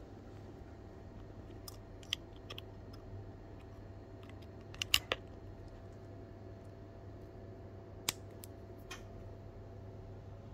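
Scattered small sharp clicks and taps from a Weller soldering pencil and its tip being handled, the loudest a quick pair of clicks about halfway through, over a steady low hum.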